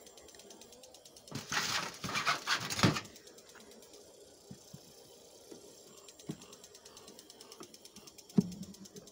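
Wooden hive frame being pried loose with a hive tool: a rasping scrape of about a second and a half, followed by scattered light knocks of wood and tool against the hive box.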